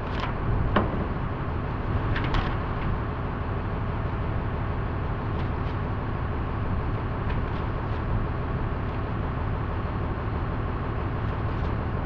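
A steady low mechanical rumble with a faint hum from running machinery. Short clicks and paper rustles come from manual pages being handled, the sharpest about a second in and again at about two and a half seconds.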